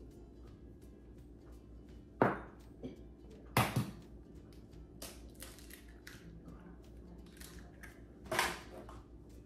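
Eggs cracked against the rim of a stainless steel bowl: sharp cracks about two seconds in, a quick double crack near three and a half seconds, and another near the end, with small handling clicks between.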